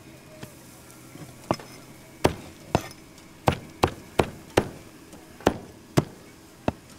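A knife chopping on a cutting board: about ten sharp chops at an uneven pace, starting about a second and a half in.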